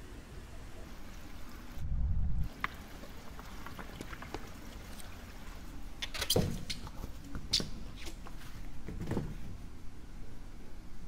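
Steady hiss of water trickling in an indoor pool hall. A deep low thump comes about two seconds in, then a few short knocks and taps as foam pool noodles are put away in their rack.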